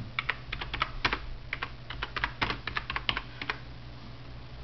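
Typing on a computer keyboard: a quick, uneven run of key clicks that stops about three and a half seconds in, over a low steady hum.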